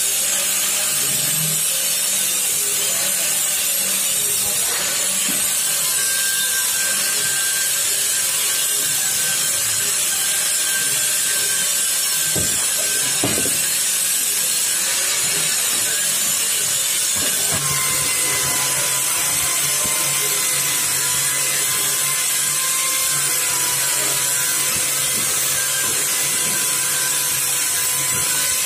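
Steady workshop noise: a continuous hiss, with a low machine hum and a faint whine coming in a little past halfway, and a couple of light knocks near the middle.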